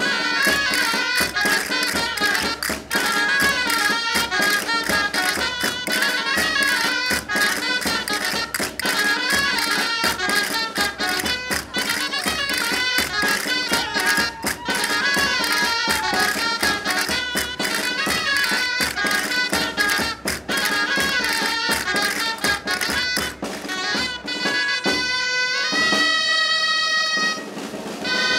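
Traditional folk-dance music with a melody over a quick, steady beat. Near the end the tune gives way to long held notes as the dance finishes.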